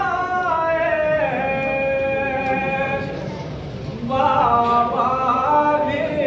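Unaccompanied male voice chanting a nauha, a Shia mourning lament, in long held notes. A falling phrase is held, there is a short pause about three seconds in, then a second phrase.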